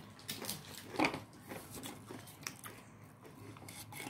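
Chewing M&M's dipped in cheese sauce: quiet mouth clicks and small crunches, the loudest about a second in.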